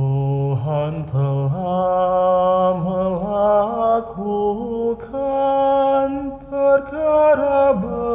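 A man's solo voice singing the refrain of a Catholic responsorial psalm in Indonesian, a slow chant-like melody of held notes that step from one pitch to the next.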